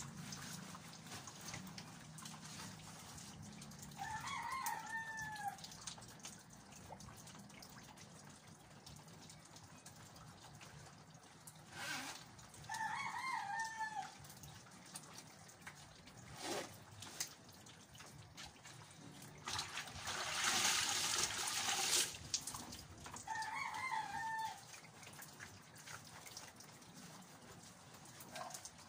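A rooster crowing three times, each crow about a second and a half long and several seconds apart. Between the crows come a couple of sharp clicks and, a little before the last crow, a two-second burst of rushing noise that is the loudest sound.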